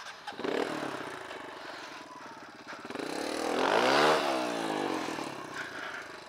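Kawasaki KLX dirt bike's single-cylinder four-stroke engine starting up again just after a stall, running, then revved once about three seconds in, its pitch rising and falling back, as the bike sits hung up on a railroad rail.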